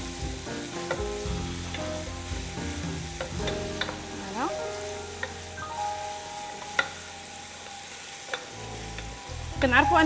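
Chopped onion frying in oil in a pan, a steady sizzle while it is stirred, with a few sharp knocks, the loudest about seven seconds in.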